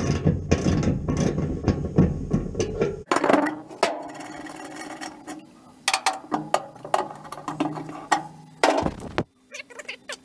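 Ratchet wrench with a 24 mm socket clicking rapidly as a bolt is wound out of the steel jig frame. About three seconds in it drops to quieter, sparser clicks and knocks.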